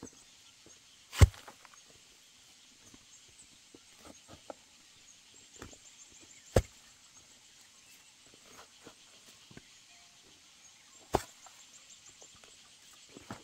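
Hoe chopping into wet clay soil: three heavy thuds about five seconds apart, with a few light knocks in between.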